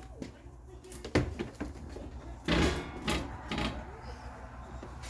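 A few short knocks and clatters of tools and parts being handled in a small shop, the loudest cluster around the middle.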